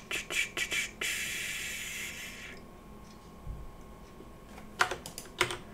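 Typing on a computer keyboard: a quick run of about five keystrokes, a soft hiss lasting about a second and a half, then a few more keystrokes near the end.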